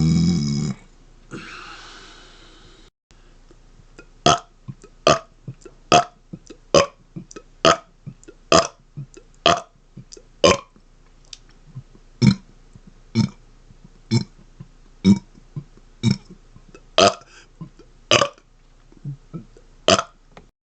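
A man burping: a long run of about twenty short, single burps, roughly one a second. A loud, deep drawn-out sound cuts off within the first second.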